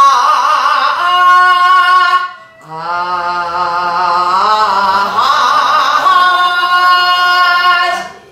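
A woman's voice sings open-mouthed vowel tones in the Korean pansori vocalization style, demonstrating a gugak vocal exercise. She holds two long notes with a short breath between them about two seconds in. Each note wavers in pitch, and the second is held for about five seconds.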